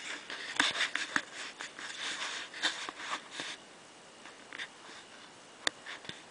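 Close rustling and clicking handling noise, dense for about the first three and a half seconds, then a few scattered clicks with one sharp click near the end.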